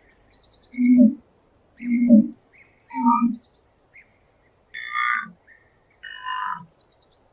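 Four short, low animal calls about a second apart, then two longer, higher-pitched calls, with small birds chirping and trilling throughout.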